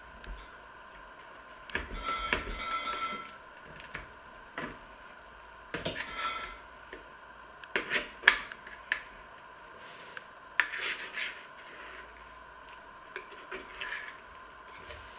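A metal utensil scraping and clinking against a metal baking tray in irregular bursts, with a few sharp clicks, as the baked pastry is loosened from the tray's edges.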